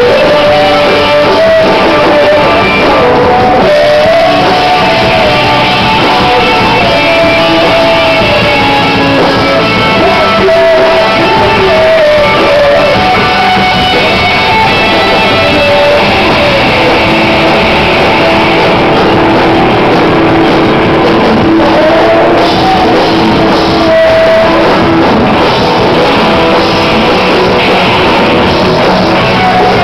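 Loud live rock band: electric guitars and a sung lead vocal line, played without pause.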